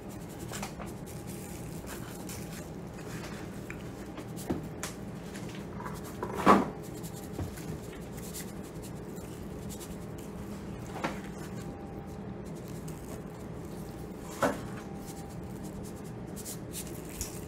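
A metal seasoning shaker can being shaken over raw chicken wings, giving a few short knocks and taps, the loudest about six and a half and fourteen and a half seconds in, over a steady low hum.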